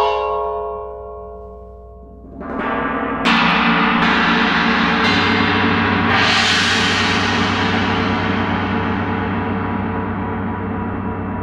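A clearly pitched metal strike rings at the start and fades. From about two seconds in, a large gong swells up and is struck about four more times, building into a loud, shimmering wash that rings on and slowly fades.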